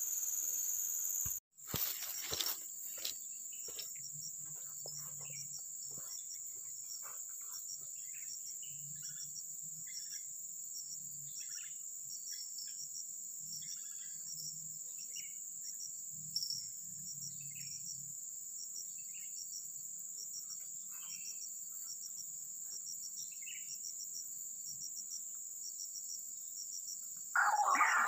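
Steady high insect buzzing with a regular pulsing chirp laid over it, and scattered short bird chirps. A louder bird call breaks in just before the end.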